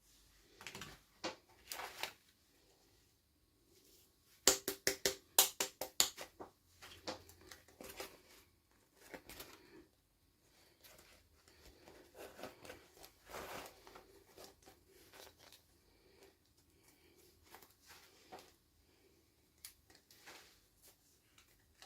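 Hands handling and opening plastic toy packaging: scattered clicks, scraping and crinkling, with a quick run of about ten sharp plastic clicks around five seconds in.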